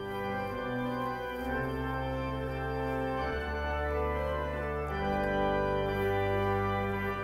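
Organ playing a slow bridal processional: held chords over a bass line that steps to a new note every second or two.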